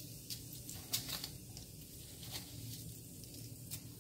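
Cumin seeds sizzling in hot oil in a kadhai: a steady hiss with scattered sharp pops and crackles, about five in all.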